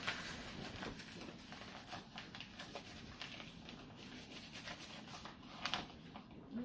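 Soft rustling and scraping as a plastic measuring cup scoops nutritional yeast flakes out of a bag, with a sharper click a little over five seconds in.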